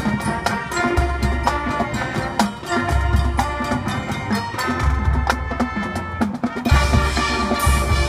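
Marching band playing: brass chords over the drumline, with low bass notes pulsing in a steady pattern and a cymbal crash about seven seconds in.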